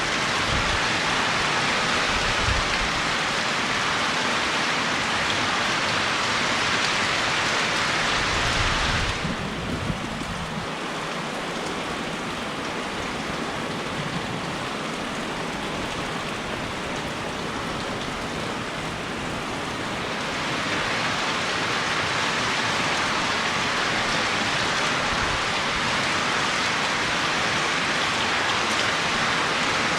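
Steady rainfall, a dense hiss of drops on surfaces. It eases and turns lighter about nine seconds in, then picks back up around twenty seconds.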